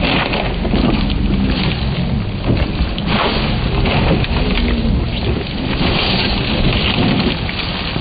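Rally car stuck in deep snow, its engine revving as the wheels spin and throw up snow, heard as a dense rushing noise over a heavy low rumble.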